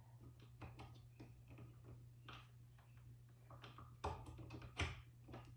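Faint clicks and taps of a USB plug being handled and pushed into a USB port on the side of a docking hub, with two sharper clicks about four and five seconds in, over a faint low hum.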